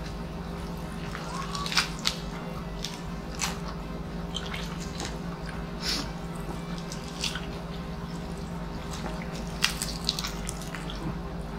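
Close-miked eating sounds: scattered sharp crackles and wet smacks as a crispy pata (deep-fried pork knuckle) is torn apart by hand and chewed, over a steady low hum.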